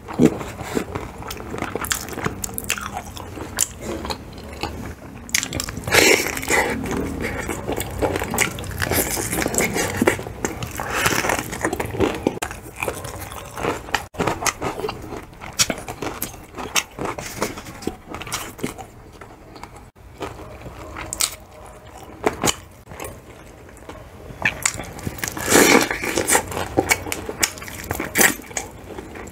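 Crunching bites into the crispy breaded skin of gravy-dipped fried chicken, then chewing. There are louder bursts of crunching about six seconds in, around ten seconds and near the end, with softer chewing in between.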